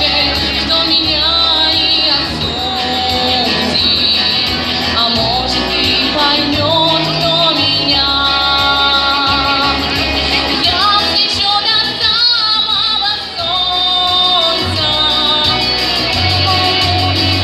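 A young female singer singing a pop song with vibrato on held notes, over instrumental accompaniment with a steady bass.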